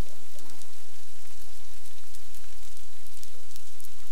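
Underwater ambient sea noise from a hydrophone recording: a steady hiss with dense faint crackling, and a low hum that sets in about a second in. No whale call is clear.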